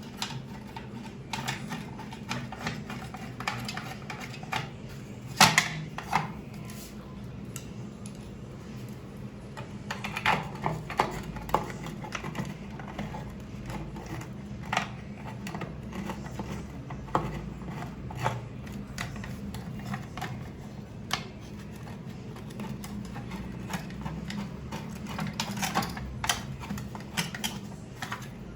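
Irregular clicks and light knocks of small screws and the plastic flush-plate cover of a concealed cistern being handled and fitted back into place, with louder bunches of clicks about five seconds in and again about ten seconds in. A low steady hum runs underneath.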